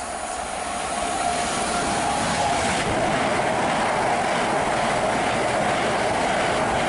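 Red Gatwick Express electric multiple unit running through the station past the platform: the wheel-on-rail rumble swells over the first couple of seconds, then holds as a steady, loud rush while the carriages go by.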